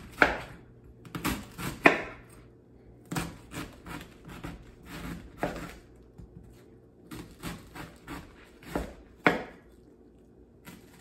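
Chef's knife cutting thin lengthwise slices through a head of green cabbage, each stroke crunching through the leaves and knocking on the cutting board. The strokes come unevenly, one or two a second with short pauses, and a few knocks are sharper than the rest.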